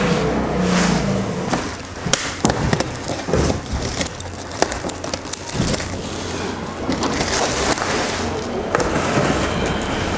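Plastic bubble wrap and wrapping film crinkling and rustling as it is pulled off and bunched up by hand, with many sharp crackles.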